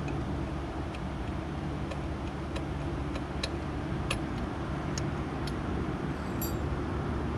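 Steady low background rumble, with faint, light metallic clicks scattered through as bolts with nylon washers are started by hand into a steel bracket.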